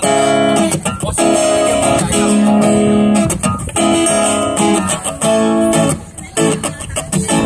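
Acoustic guitar playing chords, each ringing for a second or more, with short breaks between them.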